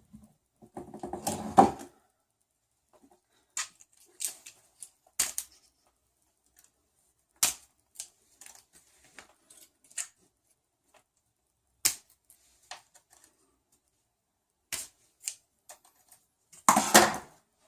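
Scattered sharp clicks, with a short burst of rattling clatter about a second in and again near the end, from hand work on plastic 3D-printer parts and zip ties.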